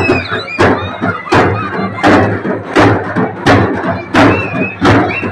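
Procession drums beaten in a steady, slow beat of heavy strikes, about three every two seconds, with crowd voices shouting over them.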